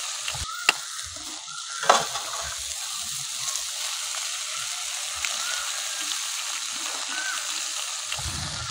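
Drumstick leaves and onion frying in oil in a kadai, a steady sizzle. Near the start come two sharp taps of a steel spatula cracking an egg, then a louder crack about two seconds in as the egg is broken into the hot pan.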